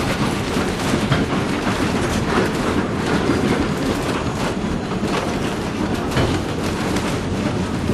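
Heritage steam train running along the track: a steady rumble of wheels on rails and rolling carriages, with irregular clicks and knocks.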